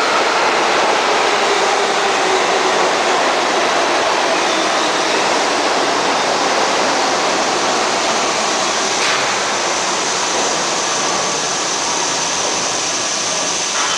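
New York City Subway train running past along the station platform: a steady loud rumble and clatter of steel wheels on the rails, with faint high wheel-squeal tones now and then.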